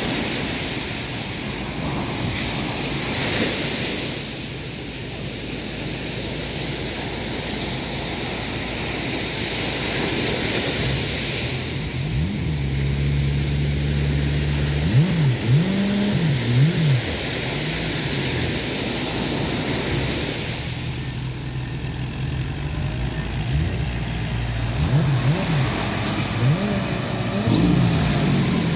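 Surf breaking, with wind on the microphone. About eleven seconds in, an engine starts running steadily and is revved up and down several times as a ski-boat is pushed off the beach into the surf.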